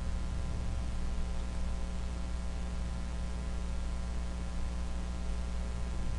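Steady electrical hum with an even background hiss, unchanging throughout: the recording's own noise floor between narrated lines.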